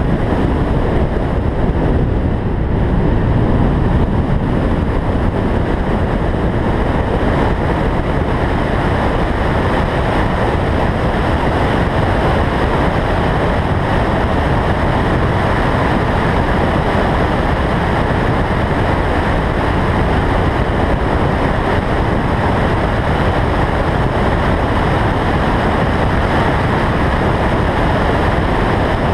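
Car driven at track speed, heard from a roof-mounted camera: heavy wind rush over the microphone, with engine and tyre noise beneath, loud and steady throughout.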